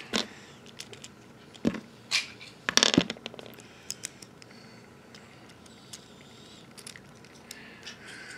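Hard plastic Lego Technic parts clicking and clattering in the hands as bush pieces and small parts are pushed onto axles. A handful of sharp clicks come in the first three seconds, the loudest cluster about three seconds in, followed by fainter scattered ticks.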